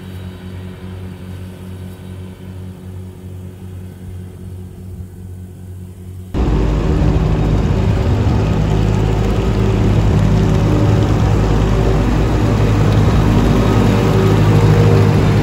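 Tractor engine running steadily under load while it pulls a mower. About six seconds in, the sound cuts abruptly to the much louder, close-up diesel engine of a Volvo L60 wheel loader running as it drives.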